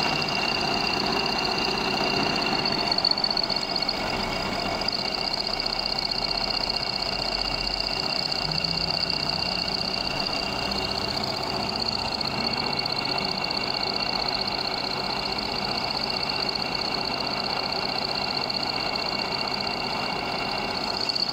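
Milling machine running, its end mill cutting a circular groove around the port hole of a metal manifold flange plate: a steady high whine over constant cutting noise.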